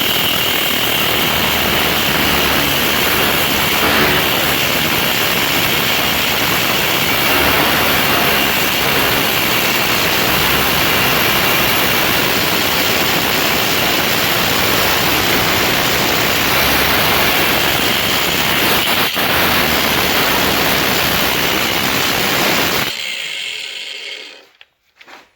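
Battery-powered cutting tool running steadily as it cuts lengthwise through a brass water-line shut-off fitting, a continuous loud grinding noise with a steady high whine. Near the end the tool stops and spins down.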